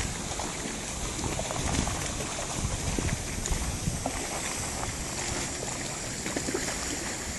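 Mill water wheel turning, with rushing water and irregular knocks.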